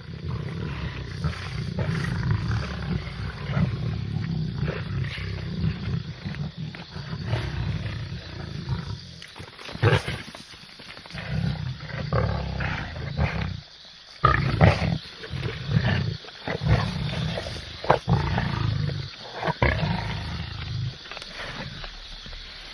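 Angolan lion roaring: long, deep roars for the first nine seconds or so, then breaking into a series of shorter grunting roars about a second or two apart that fade toward the end.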